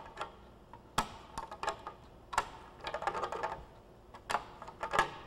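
Hand nibbler cutting thin aluminum sheet: a string of sharp, irregular clicks, about one every second or so, each a squeeze driving the small cutter through the metal.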